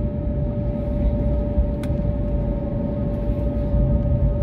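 Airliner cabin noise while the plane rolls along the runway: the jet engines run with a steady whine over a low rumble. A single sharp click sounds about two seconds in.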